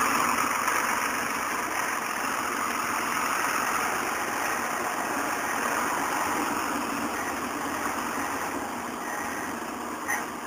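Caterpillar hydraulic excavator's diesel engine running steadily as the machine digs.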